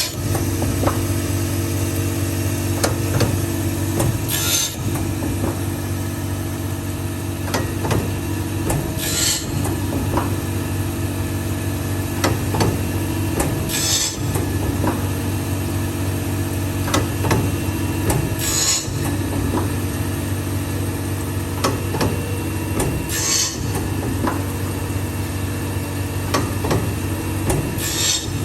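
CNC saw-blade grinding machine running with a steady motor hum while it sharpens a carbide-tipped circular saw blade. About every four and a half seconds a short, high grinding hiss sounds as the wheel passes a tooth, with light mechanical clicks in between.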